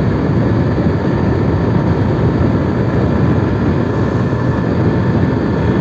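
Steady rush of wind and road noise from riding a Hero Passion Pro BS6 motorcycle at highway speed, with its engine running underneath. It is heard through a microphone that has been partly covered against wind noise.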